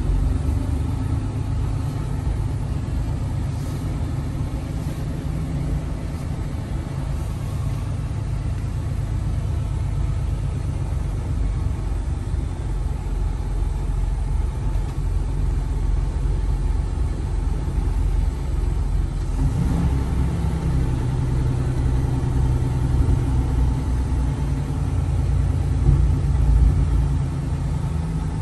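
Semi truck's diesel engine running as the truck creeps along at low speed, heard from inside the cab as a steady low hum. Its note shifts about two-thirds of the way through.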